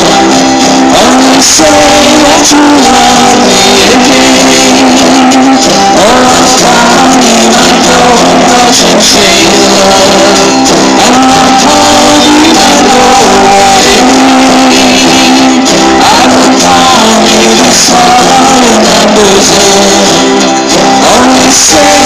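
Loud live music from an acoustic country band: guitars strumming and picking a melody.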